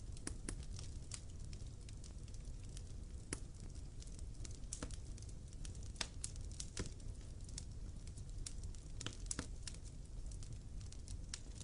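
Wood fire crackling, with irregular sharp snaps and pops from the burning firewood over a low steady rumble.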